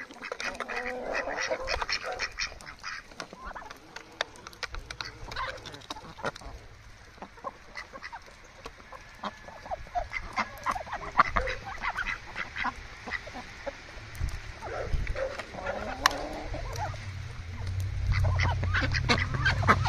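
Ducks quacking while a flock of ducks and chickens peck feed out of an RC truck's bed and trailer, with many quick, sharp clicks of bills and beaks striking the truck. A low rumble rises in the last few seconds.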